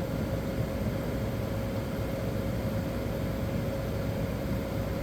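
A 1985 White Westinghouse window air conditioner running with its case off: the fan blowing air and the Matsushita rotary compressor running, a steady whoosh with a faint steady hum in it. The unit is cooling, its evaporator already getting cold.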